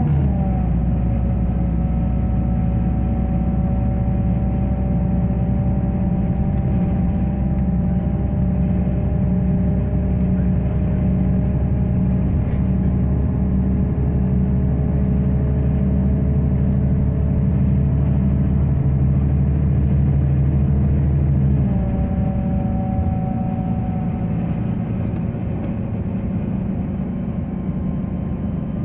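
Bus engine and drivetrain running under road noise, heard from inside the passenger cabin while under way. A whine slowly climbs in pitch as the bus gathers speed and drops abruptly twice, right at the start and about 22 seconds in, at gear changes.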